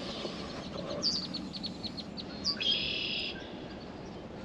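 A songbird singing: a run of quick, high, falling chirps, then a short buzzy trill about three seconds in. A steady low rumble lies underneath.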